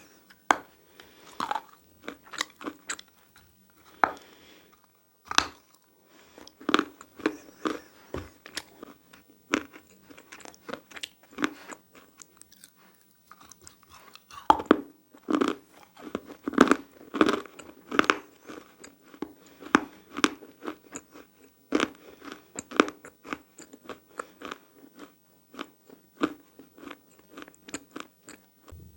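A person biting and chewing dry, powdery handmade clay chalk close to the microphone: irregular sharp crunches, several a second, broken by short pauses.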